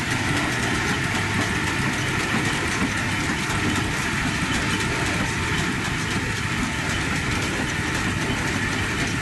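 Steam-powered sawmill running steadily: the steam engine and belt-driven mill machinery make a continuous, fast, even clatter.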